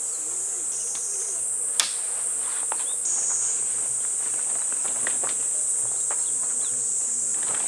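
Steady, high-pitched drone of summer insects, with scattered light ticks and one sharp click about two seconds in.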